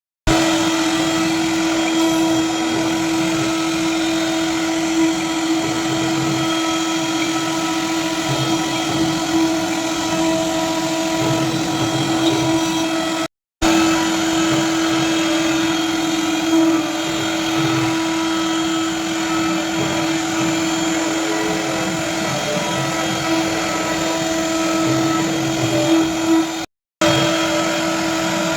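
Lathe-mounted double-head machine with hybrid servo motors running: a steady mechanical whine over a rough hum. It cuts out abruptly twice, briefly each time, near the middle and near the end.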